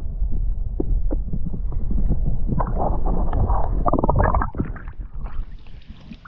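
Muffled water and handling noise on a submerged camera: a heavy low rumble with scattered clicks and knocks, and a spell of dense crackling about three to four seconds in. About four and a half seconds in the camera comes out of the water and the sound becomes quieter and clearer.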